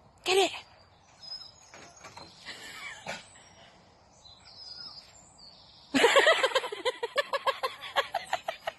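A dog gives one bark, then about six seconds in breaks into a rapid run of excited barks, several a second, while jumping up at a tree. Faint bird chirps are heard in the quieter stretch between.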